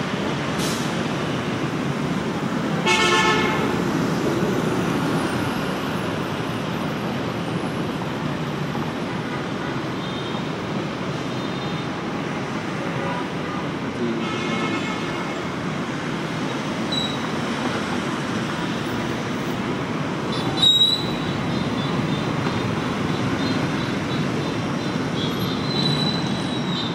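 Street traffic of motorbikes and cars running steadily, with a horn toot about three seconds in and another about fourteen seconds in. A short sharp knock sounds about twenty seconds in.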